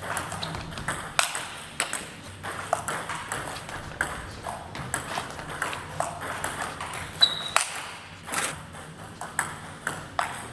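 Table tennis rally: the plastic ball clicking in quick succession off the rubber paddles and the tabletop, with a brief high squeak about seven seconds in.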